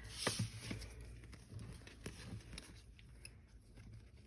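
Faint handling of photocards: scattered light taps and soft rustles as cards are shuffled and laid down in piles.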